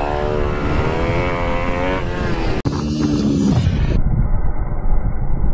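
IMR GP20 pitbike engine at high revs, heard onboard, its pitch rising and falling as the throttle is worked. About halfway the sound cuts to the bike heard from trackside: a short falling engine note as it passes, then a duller, muffled low rumble.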